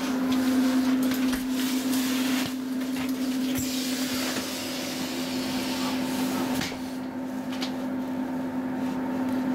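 Steady hum of a Roslagsbanan X10p electric train's onboard equipment while it stands at the platform, with a burst of hissing about three and a half seconds in and a few light clicks a little later.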